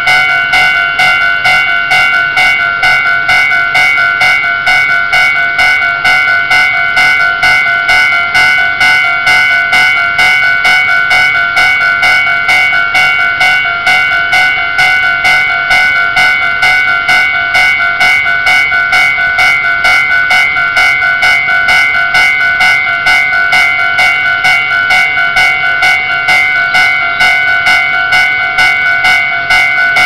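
Railway level-crossing warning bell ringing loudly and continuously, the same ringing tone struck again and again at an even, rapid rate: the crossing signal active with the barriers down for an approaching train.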